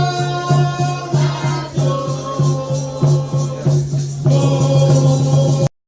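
Music with a steady pulsing beat and held melodic notes, cutting off suddenly near the end.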